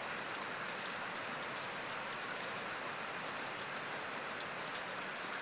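Steady rain falling: an even hiss at a constant level, with faint scattered ticks of drops.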